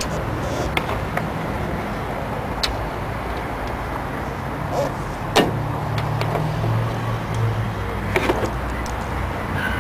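Steady low background rumble with a few scattered sharp clicks and knocks, the loudest about five and a half seconds in.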